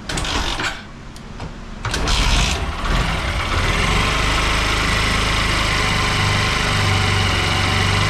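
TVS Apache RTR 160 4V's single-cylinder engine started, catching about two seconds in and settling into a steady idle. It idles with the adjuster and rocker arm freshly replaced, and the mechanic says the tik-tik noise is gone.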